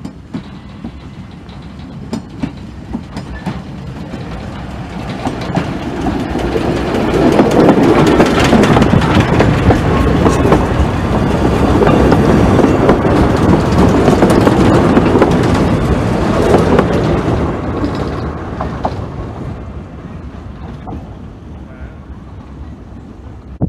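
Narrow-gauge steam train passing close by, locomotive and carriages clattering over the rails. It builds from about four seconds in, is loudest through the middle as the carriages go past, and dies away near the end.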